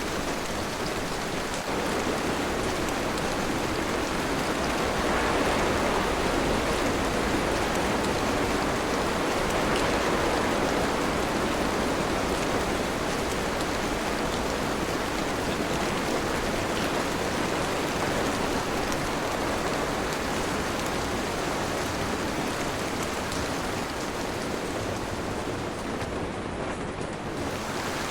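Steady heavy rain, a dense even hiss of falling water that swells slightly a few seconds in.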